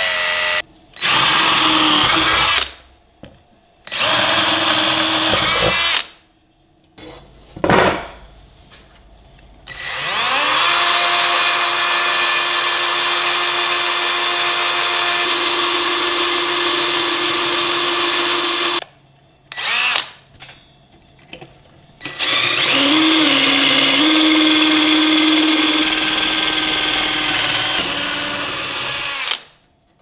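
Parkside PKGA 20-Li C2 cordless combination tool with its drill attachment, driving a twist bit through a steel flat bar. There are several short bursts of the motor, then two long runs with a steady whine, and a brief burst between them.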